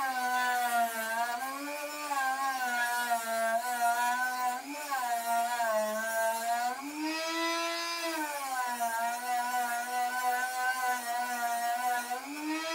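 Dremel rotary tool running at high speed under a table, its bit working the curved edge of a plywood piece. The whine drops in pitch as the wood is pressed into the bit and rises again when the pressure eases, about halfway through and near the end.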